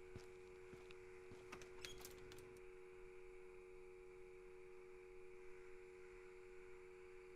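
Near silence: a steady low hum, with a few faint clicks in the first two and a half seconds.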